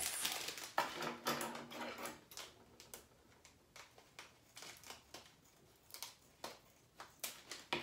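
Small plastic packet crinkling in the hands, then scissors snipping it open: a run of crackles and clicks, denser in the first couple of seconds, then sparse snips.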